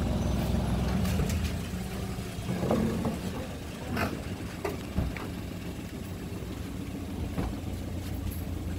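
Car engine idling with a steady low hum, with several short knocks and clunks over it.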